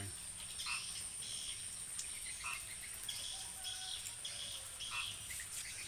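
Background ambience: a steady high insect drone, like crickets, with scattered short bird chirps and a few faint clicks.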